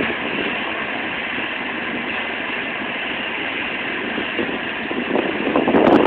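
Parked commuter train idling with a steady hum. Gusts of wind buffet the microphone near the end.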